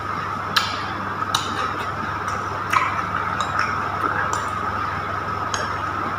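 Eating sounds: a few sharp, irregular clicks from a metal spoon against a glass bowl and from chewing on crispy fried spring rolls, over a steady background hum.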